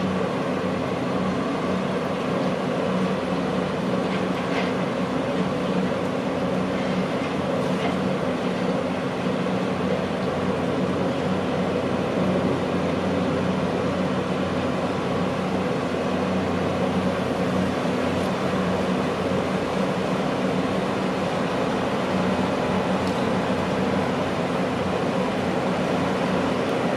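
Steady drone of heavy diesel construction machinery: an earth drill rig boring a foundation pile hole, with an excavator running nearby. It is a constant engine hum with a few steady low tones.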